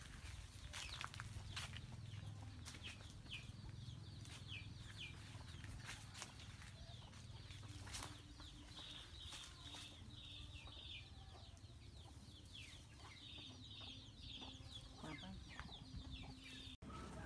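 Birds chirping in runs of short, falling high notes, several a second, over the scattered rustle and crackle of leaves, branches and footsteps in dry undergrowth.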